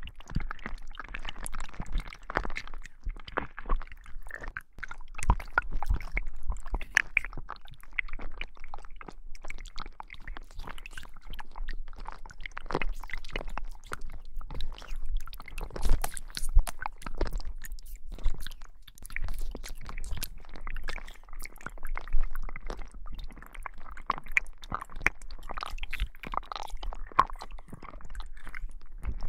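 Slime squished and kneaded close to a binaural microphone: continuous wet squelching with dense crackling clicks and a few louder pops.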